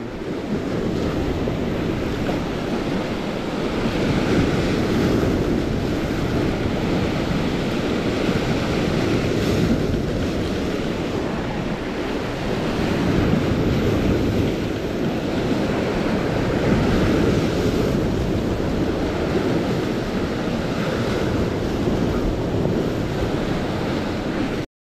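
Lake Superior waves breaking against a rocky shoreline: a continuous rush of surf that swells louder every few seconds as each wave hits, with wind buffeting the microphone.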